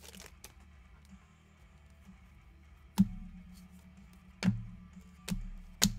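Four sharp taps with a low thud: one about three seconds in and three close together near the end, as trading cards are handled and set down.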